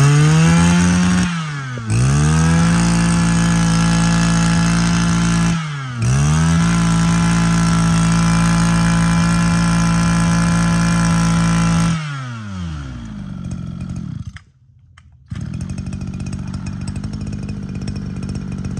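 Small two-stroke brush cutter engine revved up hard three times and held at high speed, then throttled off about 12 s in so it winds down. After a brief near-silent gap near the end, an engine runs steadily at a much lower, quieter speed.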